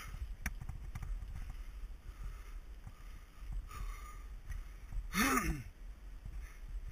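Mountain bike rolling fast over a gravel trail: steady tyre rumble with frequent small knocks and rattles from the bike, and wind on the microphone. About five seconds in, a short voice-like sound rises and falls in pitch.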